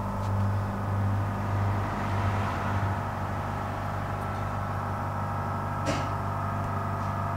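Steady low hum made of several held tones, a little louder in the first three seconds, with a single sharp click about six seconds in.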